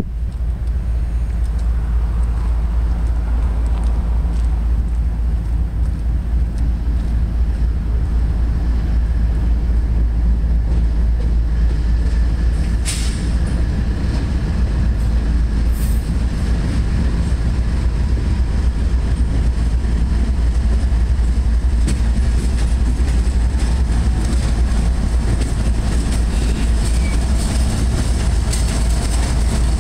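Diesel-electric freight locomotives running past close by: the GE ES40DC lead unit and a second locomotive give a loud, steady low drone that builds over the first ten seconds. Covered hopper cars follow, their wheels clicking over the rails in the second half. A short, sharp high-pitched sound comes about 13 seconds in.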